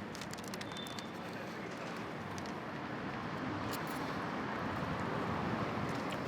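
Steady street-traffic noise that grows a little louder a few seconds in, with a few light clicks near the start.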